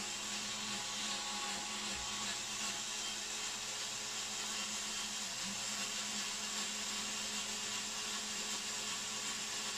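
Small one-handed cordless screwdriver with a hex bit running, a steady motor whir as it slowly backs out the hex screws of a subwoofer grille.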